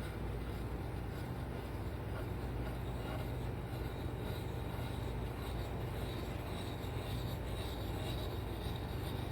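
A lawn mower engine running steadily nearby, with the scratchy rubbing of a hand-held sharpening stone worked in circles along an axe bit.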